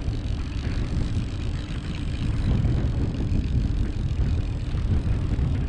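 Outboard motor running steadily at trolling speed.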